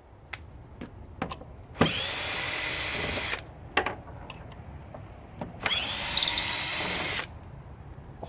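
Power drill running in two bursts of about a second and a half each, spinning up at the start of each, backing screws out of the underside cover of an electric scooter. Light clicks and knocks come between the bursts.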